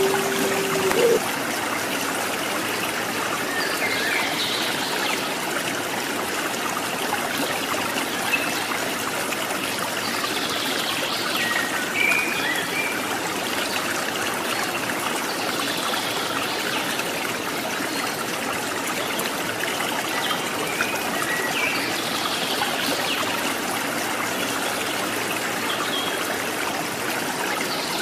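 Steady trickling, babbling stream water, with faint short high chirps every few seconds. A low dove coo ends about a second in.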